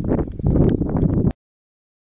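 Wind buffeting the camera microphone: a loud, irregular low rumble that cuts off abruptly to silence a little over a second in.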